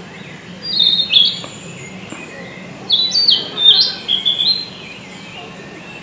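Male narcissus flycatcher singing clear whistled notes that step up and down in pitch. There is a short phrase about a second in, then a longer one of several notes from about three seconds in.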